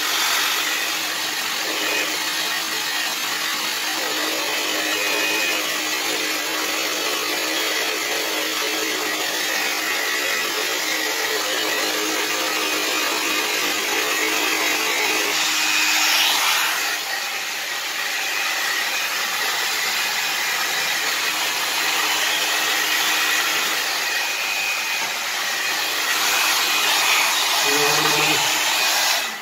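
Handheld hair dryer running continuously, a loud steady rush of blown air over a faint motor hum, briefly louder about halfway through; it switches off right at the end.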